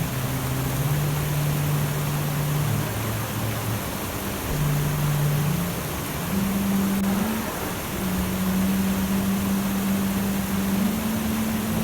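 Steady rushing noise like running water, under a slow line of low, held notes of ambient music that step up and down in pitch every second or two. No birdsong stands out.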